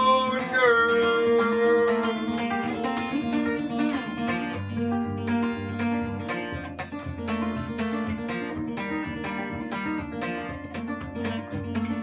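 Solo acoustic guitar playing an instrumental passage after the song's last sung line, quick picked and strummed strokes. A sung final note is held for about the first two seconds.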